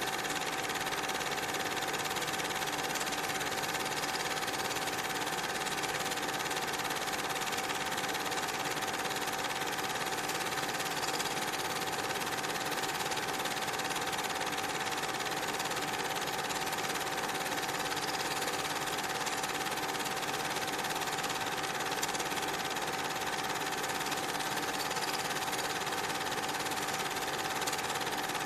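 Cine film projector running: a steady mechanical whirr with a constant high-pitched hum and no change in speed.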